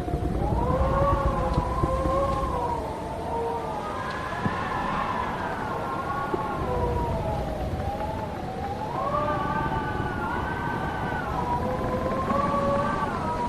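Howling wind: several whistling tones that slowly rise and fall together, over a steady low rumble of gusting air.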